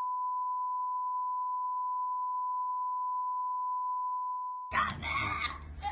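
Steady single-pitch censorship bleep masking the audio. It cuts off about four and a half seconds in, when the video's voices come back.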